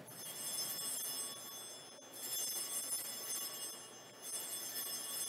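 Altar bells (Sanctus bells) rung in three rings of about two seconds each, a cluster of high, shimmering bell tones, the third starting near the end. The ringing marks the elevation of the consecrated host.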